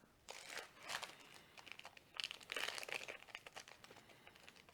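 Booster pack's plastic-foil wrapper being torn open and crinkled, in two spells of crackling rustle: one just after the start and one about two seconds in, with small crackles between.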